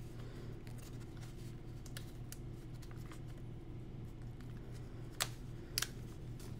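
Small metal binder clip and paper being handled on a journal page: scattered soft clicks and rustles, with two sharper clicks a little over five seconds in. A steady low hum runs underneath.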